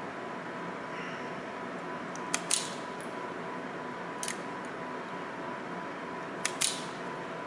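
Hand wire-stripping tool snipping through insulated wire ends, three times, each a sharp double click, over a steady hum.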